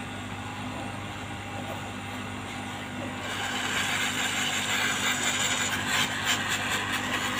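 Hot air gun blowing on a phone's frame to warm it before gluing: a steady hiss of air that grows louder about three seconds in, over a low hum, with a few handling clicks near the end.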